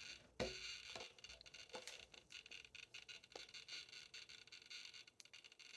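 Near silence with faint, scattered small clicks and taps of hands handling a phone and headphones while pairing them, over a low hiss.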